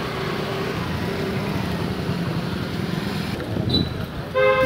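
Street traffic: motorcycle and scooter engines running past at close range. Near the end comes one short, loud honk of a vehicle horn.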